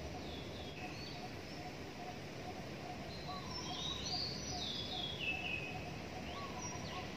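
Small birds chirping, with a quick series of falling notes in the middle, over the steady background noise of the city.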